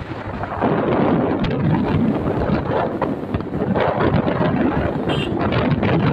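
Wind buffeting the microphone of a moving motorcycle, a Hero HF Deluxe, with the engine running under the rush; the wind grows louder about half a second in.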